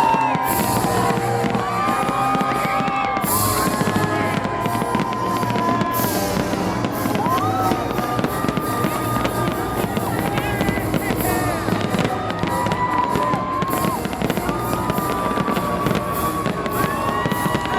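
Fireworks display: shells bursting and crackling, with music playing throughout.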